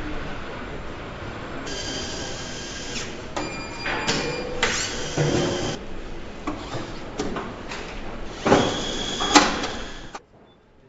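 Car assembly plant machinery: a steady hum, then several bursts of hissing and whirring tools that start and stop abruptly, with two sharp clanks near the end.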